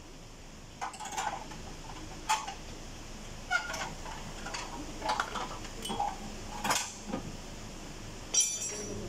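Irregular metallic clinks and knocks, about a dozen spread over several seconds, with a short rattle near the end, as the car's aluminium AC condenser and the metal parts around it are handled during its removal.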